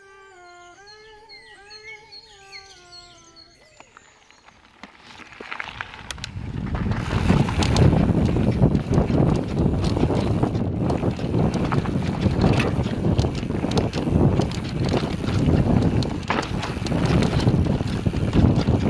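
Mountain bike ridden along a dirt forest trail: loud, steady tyre rumble with many sharp rattles and knocks, and wind buffeting the microphone. It swells in about five seconds in, after a faint short melody at the start.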